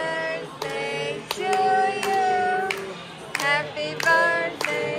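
Several voices singing a birthday song to a child, with hand claps landing about once a second.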